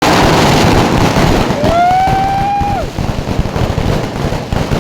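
Fireworks and firecrackers going off in a dense, continuous crackle. In the middle a pitched whistling tone with overtones sounds for about a second, sliding up at its start and dropping away at its end.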